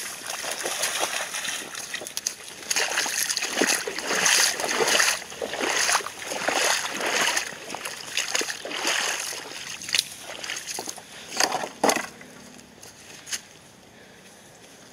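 Golden retrievers splashing and wading through a shallow creek: irregular sloshing and splashing that dies down near the end.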